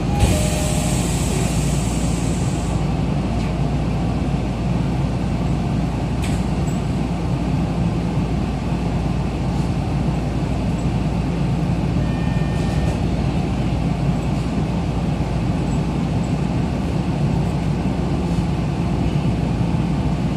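Running sound inside a Tokyo Metro Ginza Line 1000 series subway car pulling out of the station: a steady rumble of motors and wheels. A thump and a hiss of air come right at the start, a click about six seconds in, and a short pair of tones around twelve seconds.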